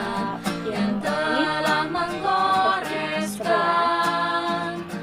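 Background music: unaccompanied voices singing slow, held notes in harmony.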